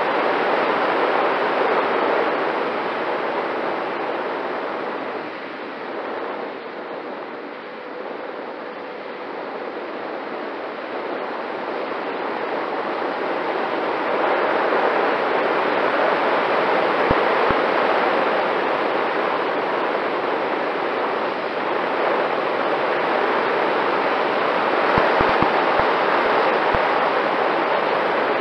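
Rushing airflow and ducted-fan noise of a Freewing MiG-29 RC jet with twin 80 mm electric ducted fans in flight, heard from a camera mounted on the airframe, with a faint steady fan tone. The noise eases off for several seconds, then builds up again, with a few short low knocks of wind buffeting the microphone in the second half.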